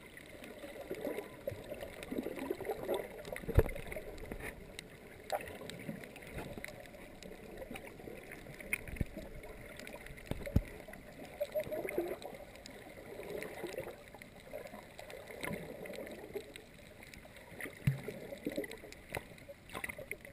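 Muffled underwater water sound picked up by a GoPro in its waterproof housing: irregular sloshing and gurgling, with a few sharp clicks or knocks, the loudest about three and a half seconds in.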